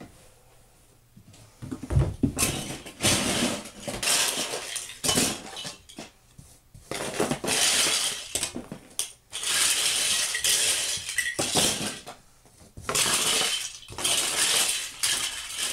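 Hard plastic toy building blocks and small toys clattering and knocking together as they are gathered up by hand and tipped into a container, in about four spells of rattling after a quiet start.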